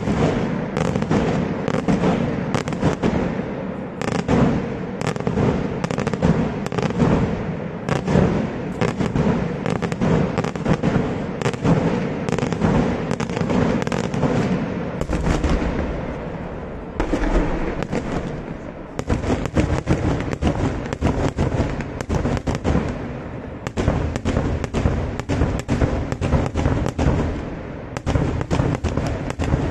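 Daytime fireworks barrage: a rapid, continuous stream of sharp bangs, many a second, from shells bursting in the air. It slackens briefly about halfway through and again near the end.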